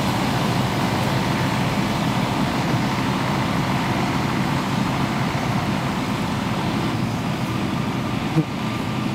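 Tractor engine running steadily while mowing grass, with a single knock near the end.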